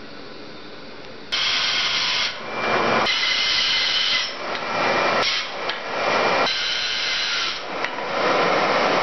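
A Craftsman 12-inch bandsaw cutting through two glued-together 2x4s, the blade running steadily through the wood. It starts abruptly about a second in and shifts sharply in level a few times.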